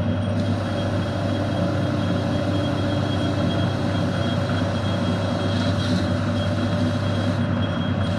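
HQ800 combination lathe-mill running with its chuck spinning while it turns down a steel output shaft, the tool fed by hand on the top slide. A steady low hum with a thin, steady high whine above it.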